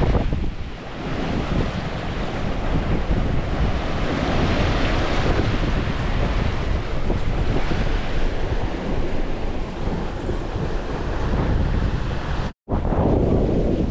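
Water rushing and splashing along a sailboat's hull as it sails under way, with wind buffeting the microphone. The sound cuts out for an instant near the end.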